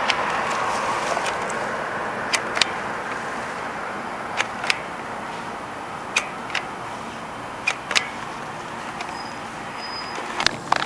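Road traffic from a passing car, a steady rush that slowly fades away. Pairs of short sharp clicks recur every second and a half to two seconds over it.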